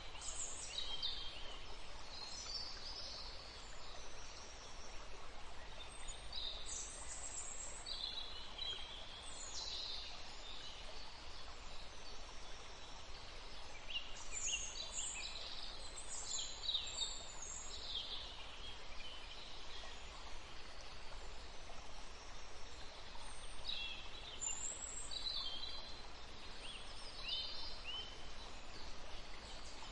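Wild birds chirping and calling, short high chirps scattered throughout and thickest in the middle, over a steady outdoor background hiss.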